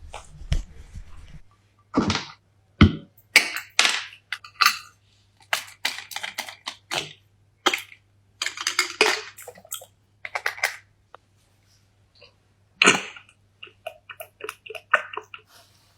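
Makeup cases and tools handled close to the microphone: a series of sharp clicks and snaps like caps and compacts opening and closing, with short scratchy rubbing in between and a run of light ticks near the end.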